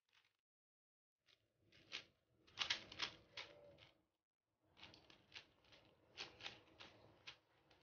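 Faint clicking and clacking of a plastic 5x5 puzzle cube as its layers are turned by hand, in two quick runs with a short pause about halfway.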